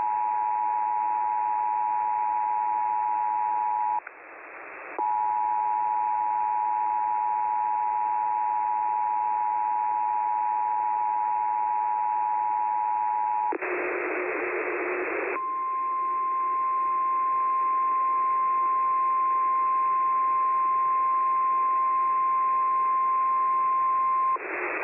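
Emergency Alert System attention signal, its two steady tones sounding together, heard over the radio and broken by about a second of hiss some four seconds in. After a burst of radio static near the middle, it gives way to a single steady, slightly higher tone, the NOAA Weather Radio warning alarm, for about nine seconds.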